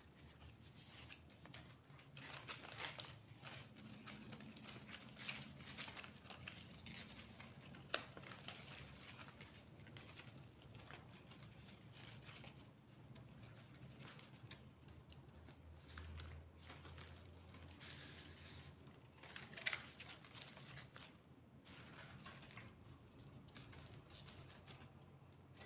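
Faint rustling and crinkling of dry banana-fibre strips being handled and woven by hand, with an occasional light click or tap.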